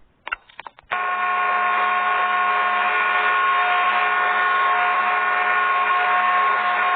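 A few short clicks, then about a second in a wobbly ceiling fan's running sound starts suddenly: a steady motor whir with a constant hum.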